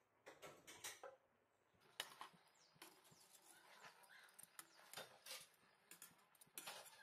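Faint crackling and popping of a whole marinated chicken cooking in its own juices in a pot, with a few sharper, irregular clicks as metal tongs come to the pot.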